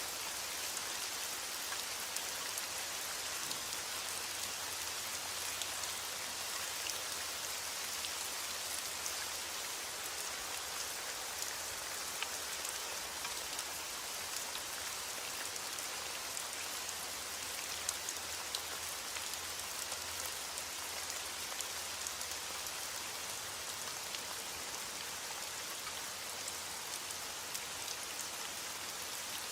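Steady rain falling on a surface: an even hiss, with fine scattered drop ticks.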